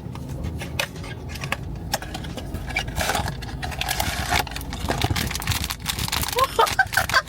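Blind-box packaging being opened by hand: crinkling and tearing of the box and its wrapper, with many small clicks and crackles.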